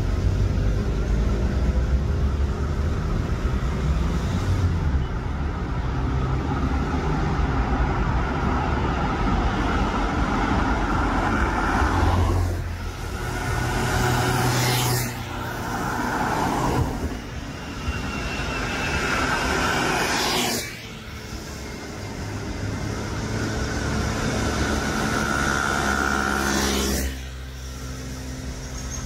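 Road traffic: several cars pass close by one after another over a steady hum of traffic, each rush of tyre and engine noise dropping away sharply as it goes past.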